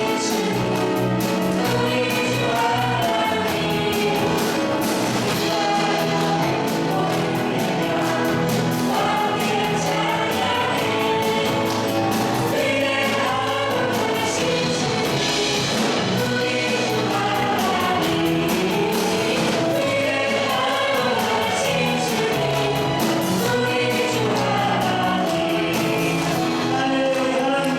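Church praise team singing a gospel worship song as a choir, with steady musical accompaniment throughout.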